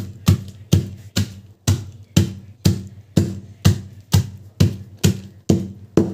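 Nuts in a plastic bag being pounded with a heavy pounder: a steady run of sharp thuds, about two a second, crushing them into coarse pieces.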